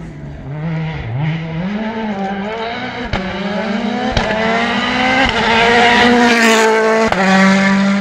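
Rally car engine at full throttle, revving up through the gears and growing louder as the car approaches. A sharp crack comes at each of four gearshifts.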